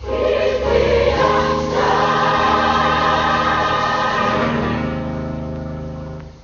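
Gospel choir singing with instrumental backing: a full held chord that comes in suddenly and fades away near the end.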